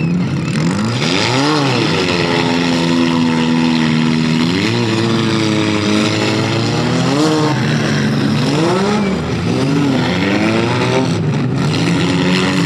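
Demolition derby car engines revving over and over, the pitch climbing and falling every couple of seconds, with more than one engine heard at once in places.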